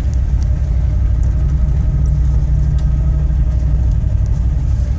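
Chevy Suburban's engine and running gear giving a steady low rumble heard from inside the cabin as it creeps down a muddy, icy track.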